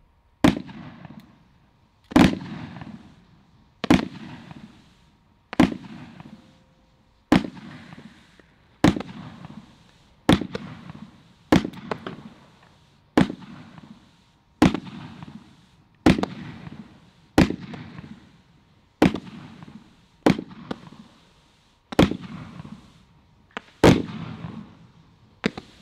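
Celtic Fireworks Flying Fish firework cake firing a steady series of about seventeen shots, one roughly every second and a half. Each shot is followed by about a second of hissing from the flying-fish effects, fading away before the next.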